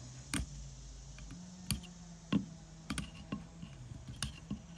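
Folding knife blade cutting and prying chips out of a walnut rifle stock: a series of sharp, irregular clicks, about two a second, over a faint low hum.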